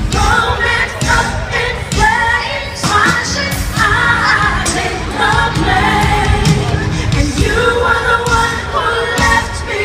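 Live freestyle pop music played loud over a concert sound system, with a female lead vocal singing and a steady beat.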